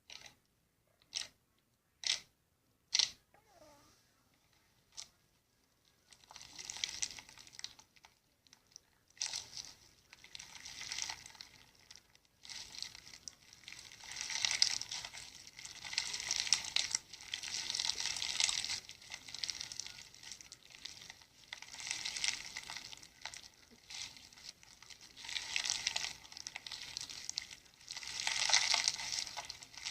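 Slime being squeezed and stretched by hand, crackling and crinkling in repeated swells of popping. It opens with a few separate sharp clicks.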